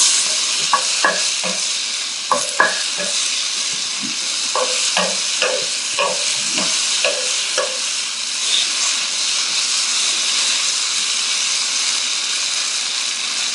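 Firm tofu frying in canola oil in a pan, a steady sizzle. Short light clicks and knocks come through during the first several seconds.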